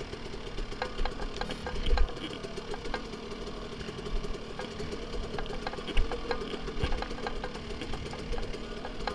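Dirt bike engine running at low revs on a rocky descent, with scattered clicks and knocks from rocks and the bike's chassis. A few heavier thumps, the loudest about six seconds in.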